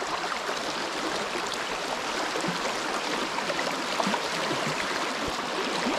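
River water rushing steadily through a shallow riffle over stones, with a few faint ticks in the flow.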